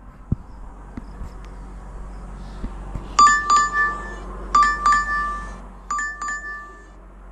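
Doorbell chime ringing a two-note ding-dong three times in a row, about a second and a half apart, starting about three seconds in.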